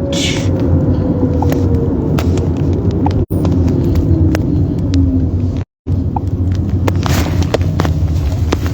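Steady low vehicle rumble, with a tone that falls slowly over several seconds and a few scattered clicks. The sound cuts out briefly twice.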